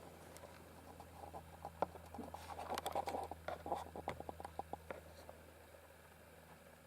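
Light clicks, taps and scratchy rustling from small plastic drone parts and wires being handled close to the microphone, over a faint steady low hum. The clicks bunch up in the middle and fade out again after about five seconds.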